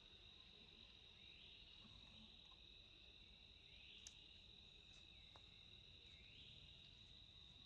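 Faint forest insect chorus: a steady high-pitched whine, with a short rising sweep repeating every couple of seconds, and a couple of small clicks.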